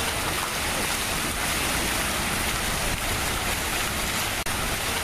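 Water splashing in a stone fountain: a steady rushing hiss with no tune or rhythm, briefly dipping about four and a half seconds in.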